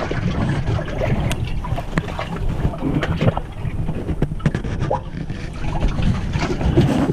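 Camera rubbing and knocking against clothing, with many short scrapes and bumps over a steady low rumble.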